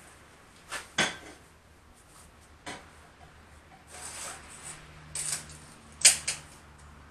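Steel tube leg being handled and repositioned against a steel base block on a steel welding table: a string of sharp metal clanks and knocks, the loudest about a second in and near the end, with some scraping in between. A low steady hum comes in a little past halfway.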